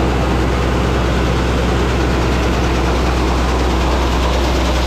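Grain augers running steadily, with a loud low engine drone and grain pouring from the bin's unload tube into the portable auger's hopper.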